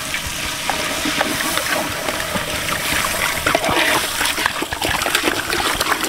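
Water being poured from a jug into a large aluminium cooking pot of masala, splashing and trickling, with short clicks from the metal ladle in the pot.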